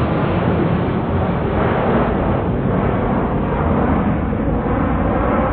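Jet engines of a twin-engine widebody airliner at takeoff thrust as it climbs away after takeoff: a loud, steady rushing rumble.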